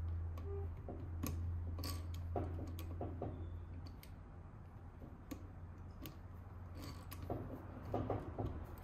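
Small metal clicks and taps of a screwdriver working the linkage rods and fittings on a Holley 2210 carburetor, scattered irregularly, with a few quick clusters about two seconds in and near the end. A steady low hum runs underneath, strongest in the first half.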